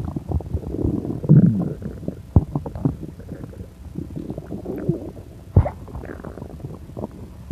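Stomach and bowels gurgling and bubbling after pancakes eaten too quickly, with irregular wavering gurgles and many small pops. A sharp thump stands out about five and a half seconds in.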